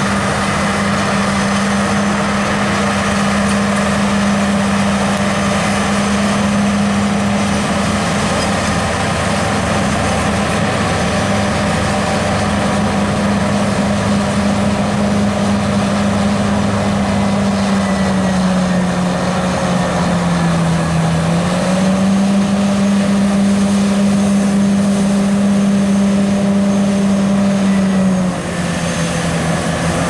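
1973 Caterpillar 983 Traxcavator's diesel engine running steadily under load as the track loader climbs a slope with a full bucket. The engine note sags for a couple of seconds about two-thirds through, then comes back up, and dips again briefly near the end.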